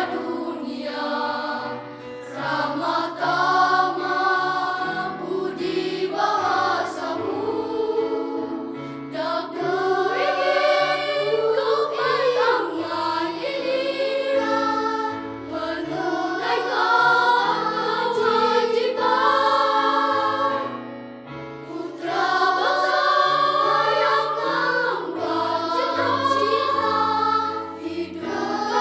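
Primary-school children's choir singing, with steady low bass notes under the voices. The singing drops away briefly about two-thirds of the way through, then comes back in.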